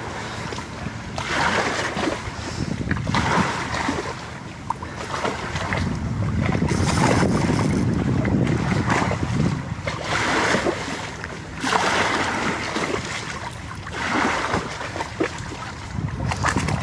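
Small lake waves washing against the shore, rising and falling in repeated swells about every two seconds, with wind rumbling on the microphone.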